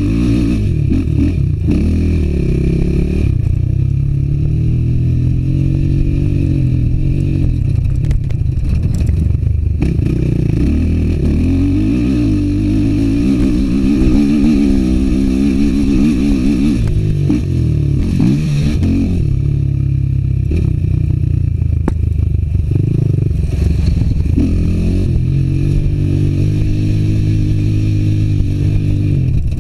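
Suzuki LT-R450 quad's single-cylinder four-stroke engine being ridden hard, revving up and dropping back again and again as the throttle opens and closes.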